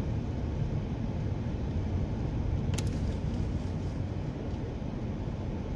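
Steady low rumble of a car driving on a gravel road, heard from inside the cabin: tyre and engine noise, with one sharp tick about three seconds in.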